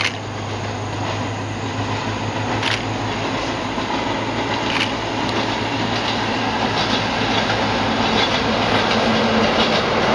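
Two-car diesel railcar train approaching along the line, its engine and running noise growing steadily louder, with a few sharp clicks in the first half.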